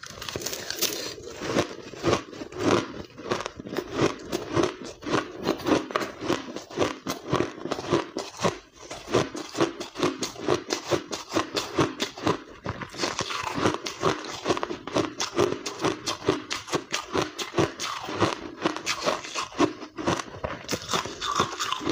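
Close-miked mouthfuls of blended white ice being bitten and chewed: a dense, unbroken run of quick crisp crunches.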